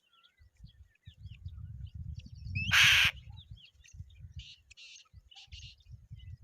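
Birds calling: one loud, harsh call about three seconds in, then two shorter raspy calls, over scattered faint chirps of small birds. A low, fluttering rumble underneath, typical of wind on the microphone.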